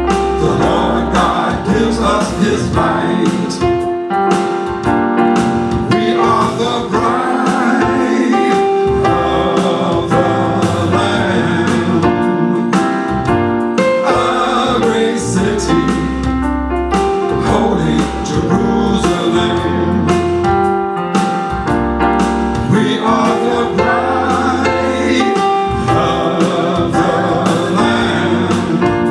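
Live gospel praise music: voices singing over keyboard and bass, with a steady beat of percussive hits.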